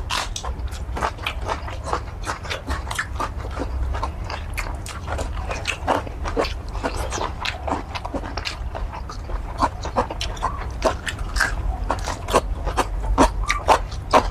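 Close-miked wet chewing and lip smacking while eating curry squid: a dense, uneven run of quick smacks and clicks, over a low steady hum.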